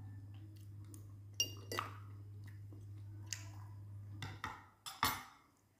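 A metal fork clinking and scraping against a glass bowl, a handful of separate clinks, with quiet chewing of food.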